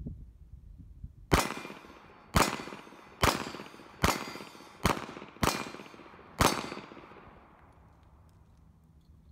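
Small handgun fired seven times in a steady string, roughly a second apart. Each sharp shot trails off in a short echo.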